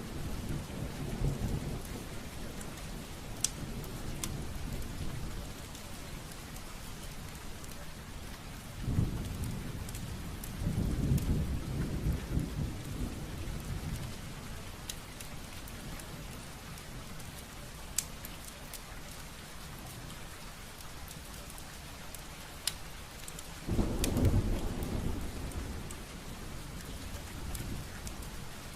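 Wood fire burning in a fireplace: a steady crackle with scattered sharp pops and a few low rumbling swells of the flames.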